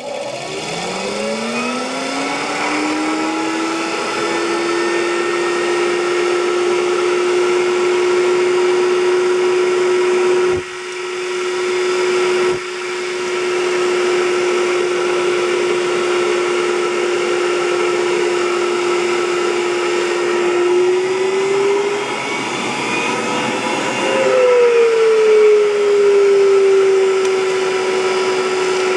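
DV-1KM 27-volt electric centrifugal blower spinning up from rest on about 10 volts, its whine rising in pitch over the first few seconds and then running steady. The whine dips briefly twice about ten and twelve seconds in. Past two-thirds through, the pitch climbs higher, then falls back to a steady pitch a little above the earlier one.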